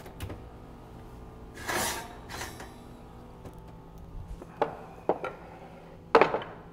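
A ceramic baking dish handled with a cloth and set down on a wooden cutting board: a few light knocks and a louder clatter near the end, with a brief whoosh about two seconds in.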